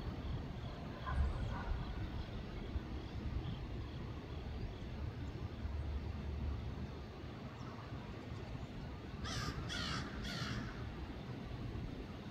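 A crow caws three times in quick succession about nine seconds in, over the low, steady rumble of a freight train's last cars rolling away.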